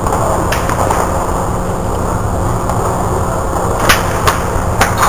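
A golf club strikes a ball off a driving-range mat with one sharp crack about four seconds in. Fainter clicks follow, over a steady low hum.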